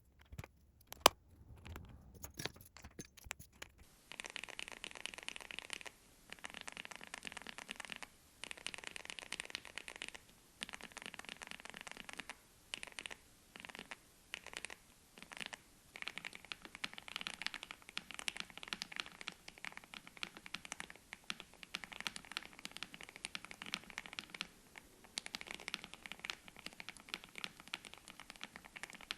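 Typing on a mechanical keyboard fitted with Gateron Milky Yellow Pro linear switches: fast, continuous key clacks broken by short pauses. The first few seconds hold only a few separate clicks, one sharp and loud about a second in.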